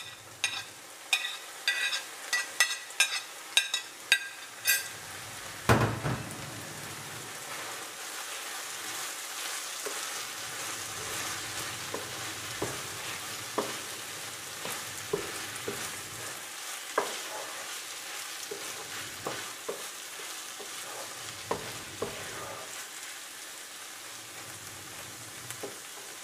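Vegetables frying in a frying pan with a steady sizzle. For the first few seconds a metal spoon clinks sharply two or three times a second while scraping cut tomato into the pan, then there is one heavy thump. After that a spatula stirs the pan with occasional light knocks against it.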